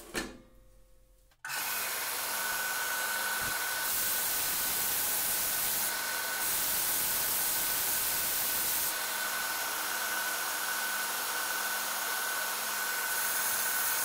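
Combination belt-and-disc sander running with its shop vacuum drawing off the dust: a steady hiss with a thin steady whine that starts abruptly about a second and a half in. A piece of wood is pressed against the vertical abrasive belt, and the sanding hiss gets brighter in several stretches. One soft knock comes just before the machine sound starts.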